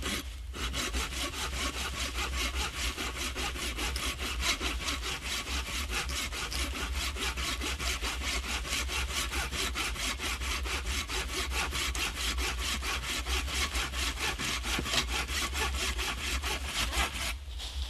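Hand saw cutting through a piece of firewood resting on a stump, in steady, evenly spaced back-and-forth strokes. The sawing starts about half a second in and stops shortly before the end.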